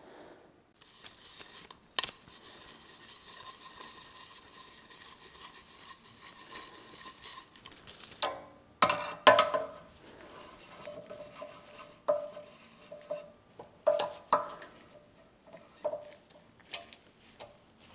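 Steel hoist chain and lifting hook clinking and knocking against the cast-iron milling-machine knee as the lift point is being shifted and set. Scattered metallic clinks with a short ring, the loudest about 8 to 9 seconds in and a run of them later on.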